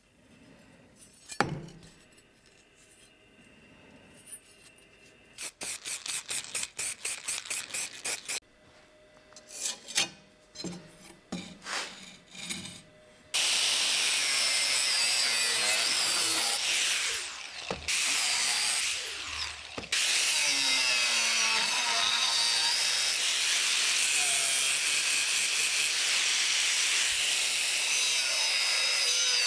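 Workshop hand-tool work, a single knock and then a quick run of even strokes with scattered knocks, followed about halfway through by a power tool running loudly and steadily. The power tool drops out briefly twice and starts again.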